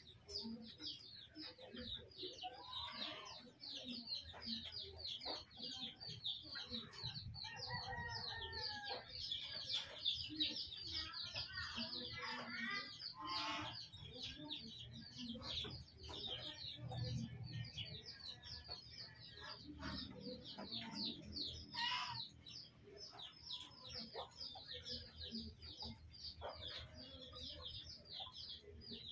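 Many small birds chirping fast and without pause, with a chicken clucking now and then.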